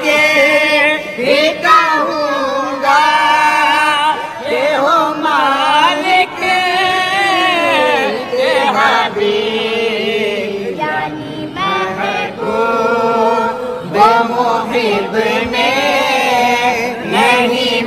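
A boy's high voice singing a devotional Urdu naat, drawing out long ornamented notes whose pitch bends and wavers, with no clear words.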